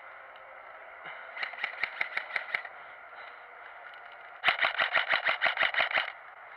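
Airsoft gun firing on full auto in two bursts of rapid clicking shots, about nine a second: a shorter, fainter burst about a second in, then a longer, louder one past the middle.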